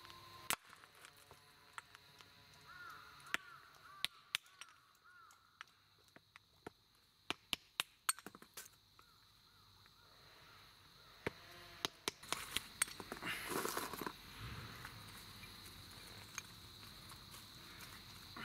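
Sharp wooden knocks as a hatchet blade is struck into and splits a small piece of firewood into kindling on a wooden stump, single strikes with a run of quick ones in the middle. Faint repeated calls sound in the background about three to four seconds in, and near the end there is a longer rattling clatter of wood.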